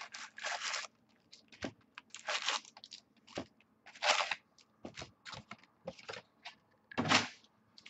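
Crinkling and tearing of packaging as a box of trading-card packs is opened: irregular rustles and crackles with small clicks, the loudest burst near the end.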